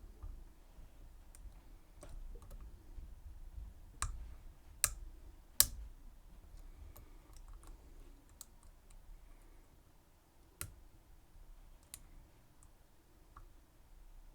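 Metal lock picks working inside a Schlage Everest 29SL lock cylinder, giving scattered small metallic clicks. Three louder clicks fall close together about four to six seconds in, and another comes near eleven seconds.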